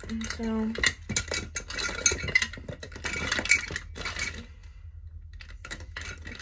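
Plastic makeup containers and compacts clattering and clinking as someone rummages through a basket of makeup. A dense run of clicks and knocks lasts a few seconds, then a few scattered knocks come near the end.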